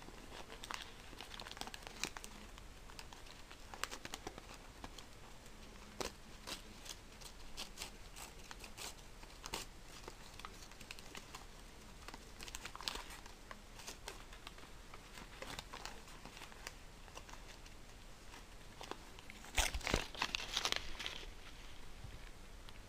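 A sheet of paper crinkling and tearing as a small pet paws and bites at it, in scattered short rustles, with a louder flurry of crumpling near the end.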